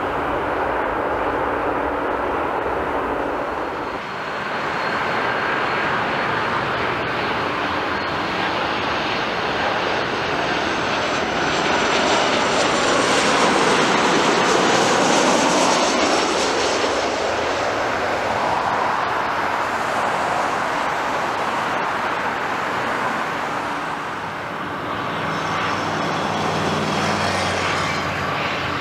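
Jet airliner's turbofan engines passing low overhead on final approach, the sound building to a peak about midway and fading with a falling whine. Near the end another approaching airliner's engines can be heard.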